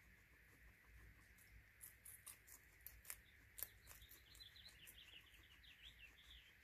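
Guinea pig crunching dry pellets: faint, sharp crunching clicks through the middle. A run of faint high chirps follows in the second half.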